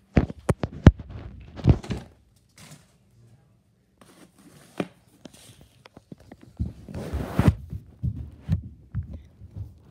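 Handling noise on a hand-held camera's microphone: a quick run of sharp knocks and thumps in the first two seconds, then scattered bumps, and a burst of rubbing and scuffing about seven seconds in as the camera is pressed against clothing.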